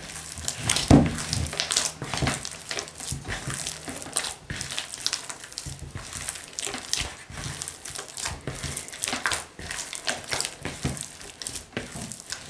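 Hands kneading soft yeast dough and working butter into it: irregular squishing and slapping strokes, with a sharper thump about a second in.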